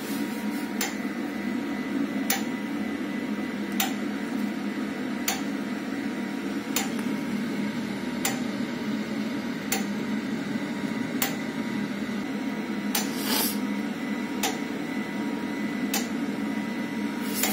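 KIPI pellet burner's fan blowing steadily during its self-cleaning cycle, purging unburnt pellets from the burner. It makes a faint steady whine and a sharp click about every second and a half.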